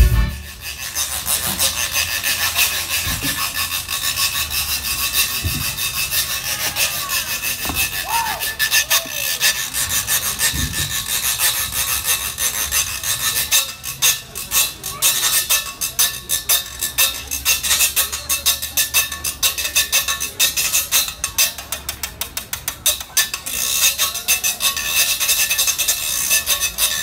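Zydeco rubboard (frottoir) solo: the corrugated metal vest scraped in rapid, rhythmic strokes. About halfway through the pattern turns choppier, with sharper, more separated strokes.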